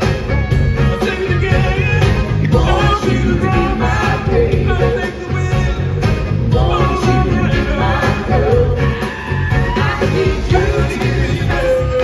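Live pop band playing loudly with a steady beat: a male lead singer over drums, bass guitar and keyboards, with backing singers.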